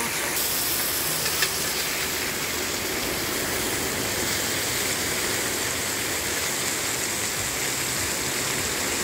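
Wahoo medallions and onions sizzling steadily in butter and olive oil in a large steel disc pan, with a metal spatula clicking against the pan once about a second and a half in.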